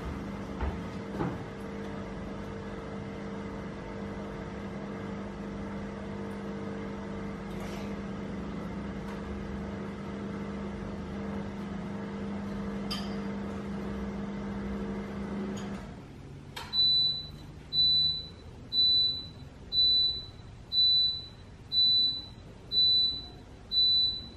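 A household appliance running with a steady hum that stops about two-thirds of the way through; a moment later it gives eight high beeps, about one a second, the signal that its cycle has finished.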